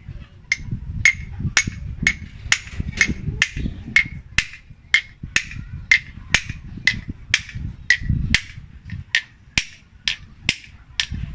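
Small hammer tapping steadily on a steel belt-tensioner pulley, about two strikes a second, each with a short metallic ring. The taps are knocking the centre sleeve out of the old tensioner bearing.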